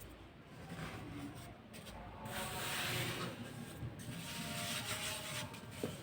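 Dried baking soda being crumbled and rubbed, a soft, powdery, crunchy rasping that grows louder about two seconds in.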